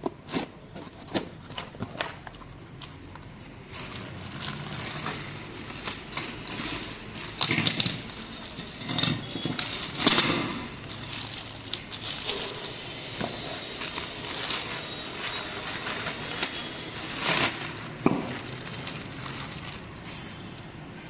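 Irregular clicks and knocks of hand tools and metal engine parts being handled during engine reassembly, with a few louder knocks and a short hiss near the end.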